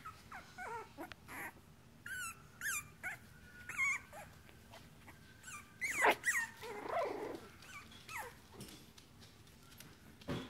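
Bichon puppies at play, making short high squeaky yips and whines with small growls; the loudest yelps come about six seconds in.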